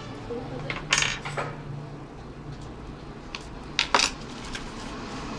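Small metal repair tools, such as tweezers, clinking against each other and the workbench in two short clatters: one about a second in, and a louder one about four seconds in.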